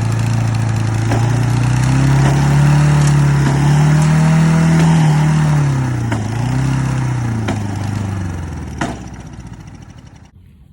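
Small lawn mower engine run flat out, being run to destruction: its speed surges up, dips twice, then sags as it loses power and stops shortly before the end, with a few sharp knocks along the way.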